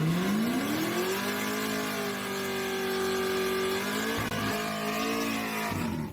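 Supercharged big-block engine of a race car under hard acceleration: the note climbs steeply, holds high, drops briefly about four seconds in as at a gear change, then climbs and holds again before cutting off.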